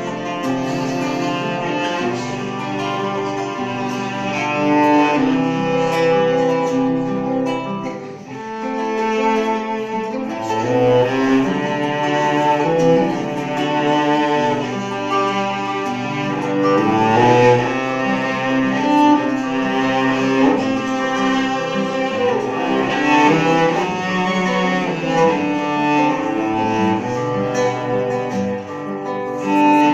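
Music: a cello playing a melody over an accompaniment, with a brief dip in loudness about eight seconds in.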